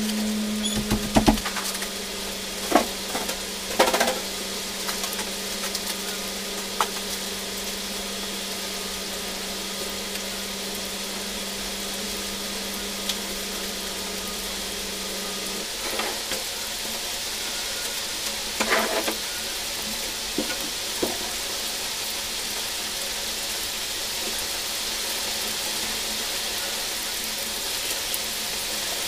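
Steady hiss of heavy rain, with a few scattered knocks and clatters from a room being cleaned.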